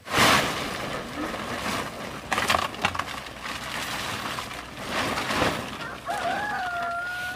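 A large plastic tarp crinkling and rustling as it is pulled and flapped, with louder surges a few times. Near the end a rooster crows in one long call.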